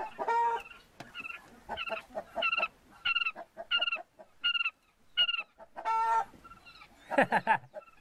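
Chickens clucking: a run of short, repeated calls about one every two-thirds of a second, with a louder, lower call about six seconds in and another near the end.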